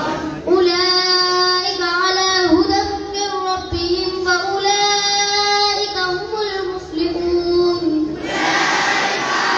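A child's solo voice singing long, drawn-out notes that glide gently between pitches, starting about half a second in and stopping about a second before the end. Around it, many voices chant together.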